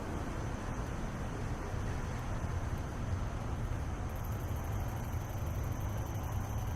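Steady low rumble of street background noise, with a faint steady high-pitched tone above it.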